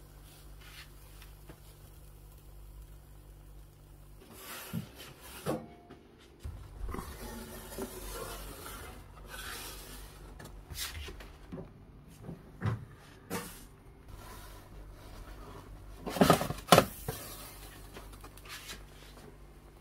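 Scattered knocks and rubbing handling noises over a low steady hum, with the loudest pair of knocks about sixteen seconds in.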